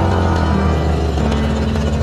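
Background music with held low notes that change about every second.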